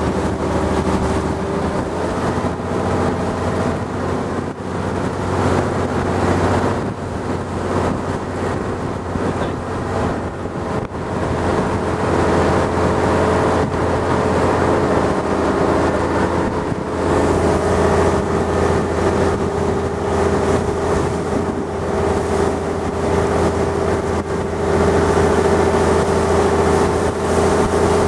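A boat's engine running steadily under way, with wind and water rushing past. It grows louder a little past halfway through.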